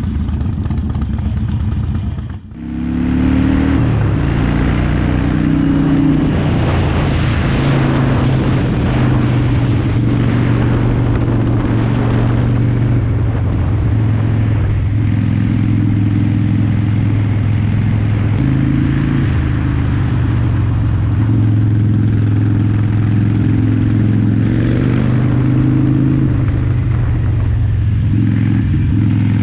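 Harley-Davidson Sportster XL1200L's 1200 cc V-twin running under way, heard from the rider's seat with wind noise over the microphone. After a brief dip about two seconds in, the engine pulls up through the revs and settles to a steady cruise.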